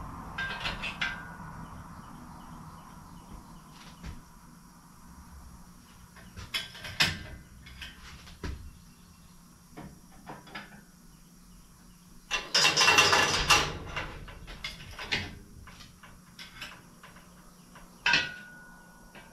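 Scattered clanks, knocks and creaks from a steel pickup bed hanging on an engine hoist's chain as it is lowered and settled onto the truck frame. About two-thirds of the way through there is one loud clattering noise that lasts about a second and a half.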